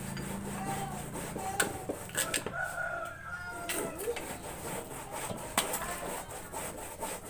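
Cassava being grated by hand on a wooden-framed grater, a run of rasping scrapes with a few sharper strokes. Chickens cluck and a rooster crows in the background, mostly in the first half.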